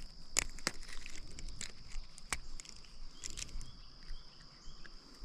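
Scattered sharp clicks and taps of pliers and hands working a hook out of a rock bass's mouth, over a steady high-pitched insect drone.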